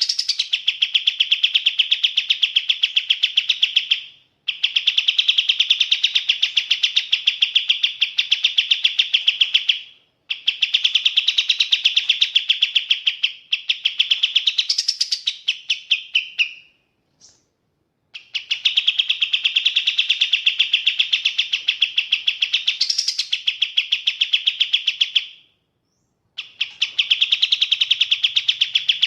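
Kapas tembak songbird calling in long, fast runs of rapidly repeated high notes, each run lasting several seconds, with brief pauses between them.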